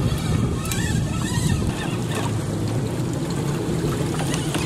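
Boat's engine running steadily, a low rumble with wind on the microphone and water noise over it.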